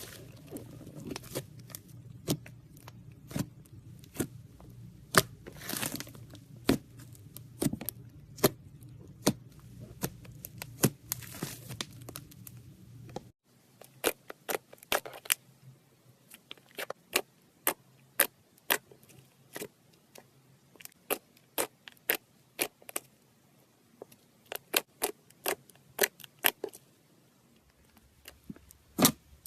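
Slime being squeezed and poked, making many sharp, irregular clicks and pops as air pockets burst. A low background hum drops out suddenly about halfway through, and the clicking continues.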